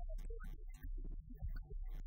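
Electronic dance music from a live DJ mix: a deep, steady bass line under a beat of short, sharp hits.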